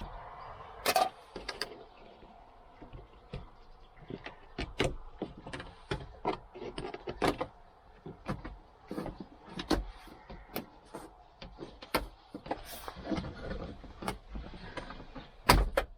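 Plastic interior trim panel of a Toyota Land Cruiser Prado 120 being pried loose by hand, with irregular clicks, knocks and creaks of plastic and its push-in clips; the loudest knock comes just before the end.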